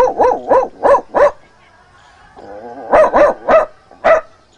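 A man imitating a dog's barking with his voice: a quick run of short yelping barks, a pause of about a second and a half, then a few more.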